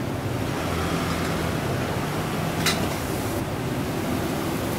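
Steady rushing noise of a gas wok burner at full flame, with a single sharp clink a little over halfway through.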